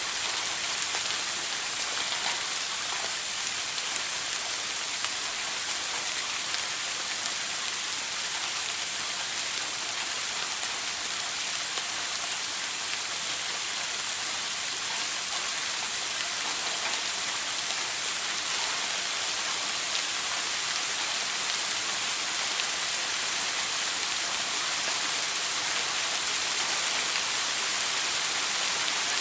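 Shower water spraying steadily and splashing down, a continuous hiss with faint patter of drops.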